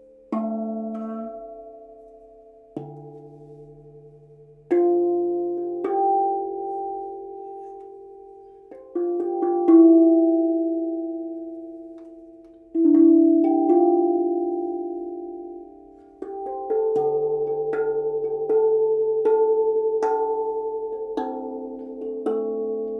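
Meinl Sonic Energy octave steel tongue drum played with rubber-tipped mallets: single clear metallic notes struck one after another in a slow melody, each ringing on and fading under the next. The strokes come faster in the last few seconds.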